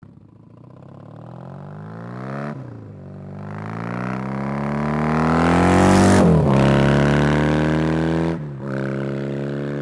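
BMW R80 RT motorcycle's air-cooled flat-twin boxer engine accelerating, its note climbing in pitch. It breaks off and climbs again about two and a half seconds in, like an upshift; its pitch drops sharply about six seconds in, and there is another short break near the end.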